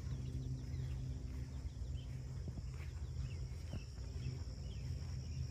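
Outdoor ambience with faint, scattered short bird chirps over a steady low hum, and a couple of soft thumps about two and a half and four seconds in.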